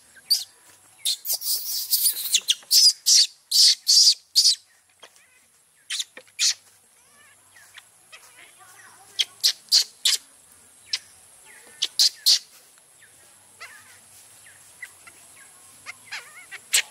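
Baby macaque's shrill squeaks and squeals, in quick runs of short calls, densest during the first five seconds and then in scattered pairs.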